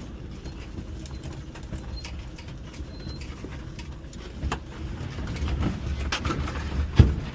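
Mitsubishi Minicab kei van's small engine running low and steady as it crawls in four-wheel drive over rough pasture, getting louder from about halfway. Scattered knocks and rattles from the bumps, with one loud thump near the end.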